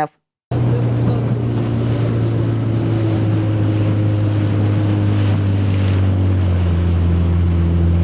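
Outboard motor of a small boat running steadily at speed over open sea, with wind and water noise; it starts about half a second in and its note shifts lower about six and a half seconds in.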